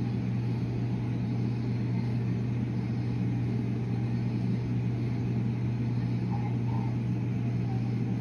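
Steady low mechanical hum with a rumble beneath it, unchanging throughout.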